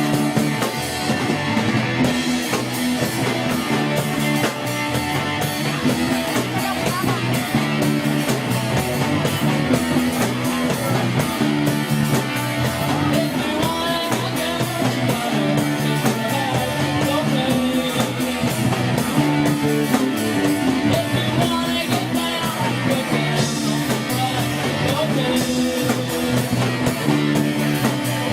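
A live rock band playing: electric guitar, bass and drum kit, with a repeating bass line and bending lead guitar notes.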